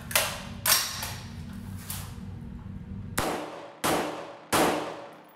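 A 20-inch M16A1 rifle firing 5.56 mm rounds semi-auto: sharp shots with ringing, echoing tails. Two come about half a second apart near the start, and three more follow about two-thirds of a second apart in the second half.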